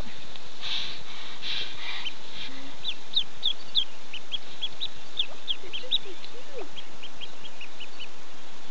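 Mallard ducklings peeping: a steady stream of short, high-pitched peeps, several a second, with a few lower calls around six seconds in.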